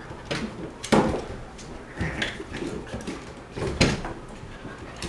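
Irregular scuffling and bumping as a dog and a cat tussle against a wooden chair on a wooden floor, with two loud knocks, about a second in and near four seconds.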